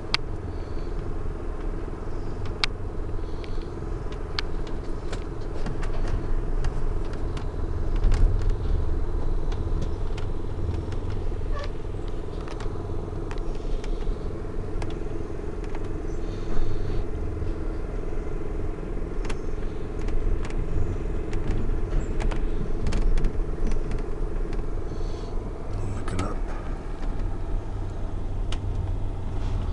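California Zephyr passenger train rolling along the track, heard from inside the car: a steady low rumble with a steady hum and scattered sharp clicks and creaks.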